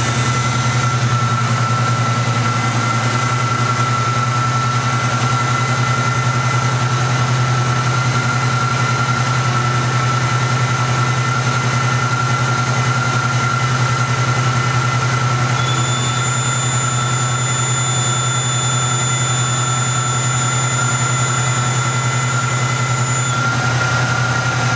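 1969 Mercury Cougar's 351 Windsor four-barrel V8 idling steadily, with a steady high whine over the idle.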